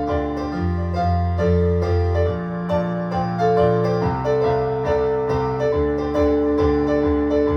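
Piano or keyboard playing an instrumental passage of a slow song: repeated chords over held bass notes, with no singing.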